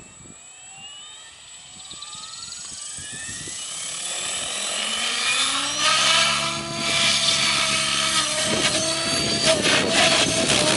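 Electric 700-size RC helicopter (Compass 7HV) spooling up: the motor and gear whine rises steadily in pitch and grows louder over the first five seconds or so. It then holds a steady pitch with the rotor blades whooshing as the helicopter lifts into a low hover and flies forward.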